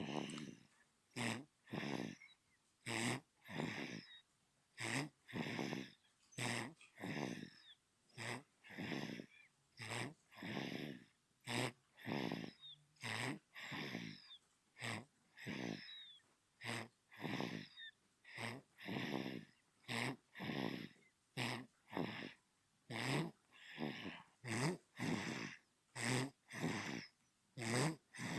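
Newborn baby snoring in its sleep: a steady rhythm of short, wheezy snoring breaths, a little more than one a second.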